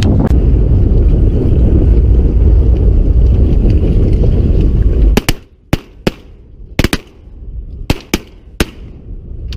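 Wind buffeting the microphone, then, about five seconds in, a volley of shotgun shots from several duck hunters firing together: about nine sharp shots in three and a half seconds, some in quick pairs.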